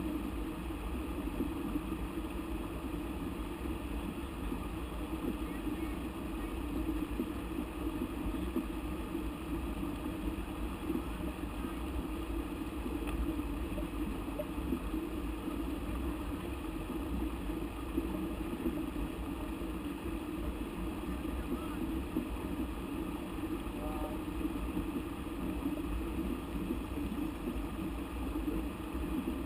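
Steady rush of flowing river water over rapids, even and unbroken.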